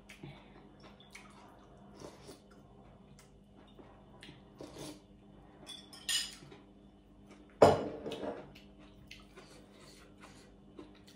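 Metal spoon clinking against a ceramic soup bowl as broth is spooned up, with small clicks throughout, then a louder knock about two-thirds of the way in as the bowl is set down.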